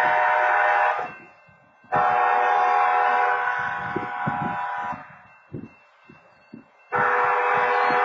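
Railroad crossing wayside horn sounding in blasts: one of about a second, a longer one of about three seconds, then another starting near the end. It is a phantom activation, with no train at the crossing.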